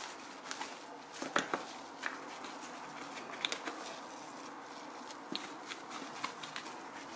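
A microfiber cloth rubbing and wiping the plastic blades of a desk fan, with irregular light clicks and knocks as the blades are turned by hand on the hub.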